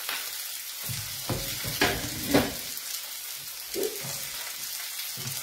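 A salmon steak sizzling steadily in a hot grill pan just after the gas is turned off, with a few sharp clicks and dull knocks from a metal spatula and tongs being handled.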